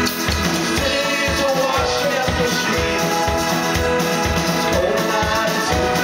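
Rock band playing live: acoustic and electric guitars, keyboard and drum kit over a steady beat.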